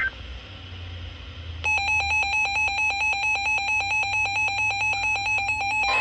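Weather alert radio sounding its alarm for an incoming National Weather Service warning: rapid, even electronic beeping that starts about two seconds in and gives way near the end to a steady alert tone.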